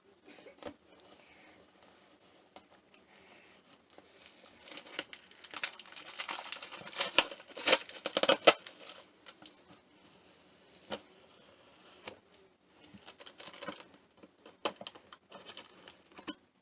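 A cardboard shipping box being opened by hand: packing tape ripping and cardboard scraping and rustling. The loudest run of ripping and scraping comes in the middle, with scattered clicks and scratches before and after.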